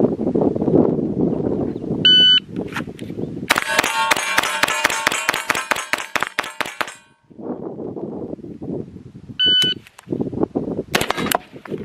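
An electronic shot timer beeps twice, about 2 s and 9.5 s in. Between the beeps there are a few seconds of rapid metallic clanging and ringing from steel targets. Near the end come a couple of sharp cracks, then steel rings again.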